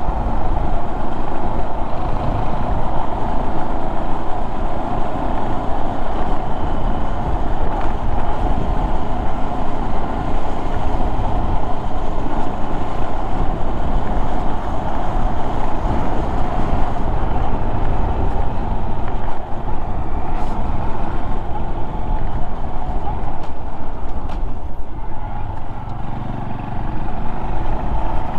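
Honda Monkey 125 motorcycle's single-cylinder engine running steadily while riding, mixed with dense wind and road noise on the microphone. The level dips briefly about two-thirds of the way through.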